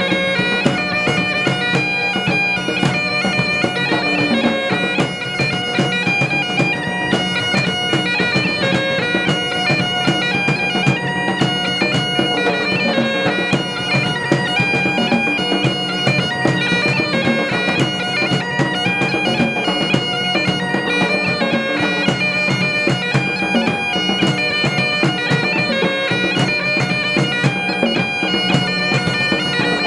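Scottish bagpipes playing a tune, the melody notes moving over a steady, unbroken drone.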